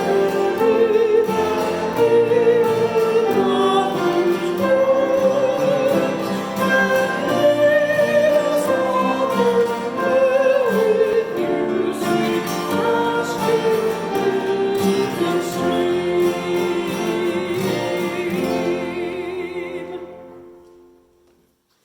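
Sung sacred music with voices holding sustained notes, fading out over the last two seconds.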